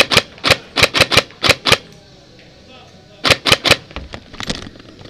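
Systema PTW airsoft rifle firing rapid single shots, sharp cracks: about eight in the first two seconds, then a quick string of three about three seconds in, followed by fainter clicks.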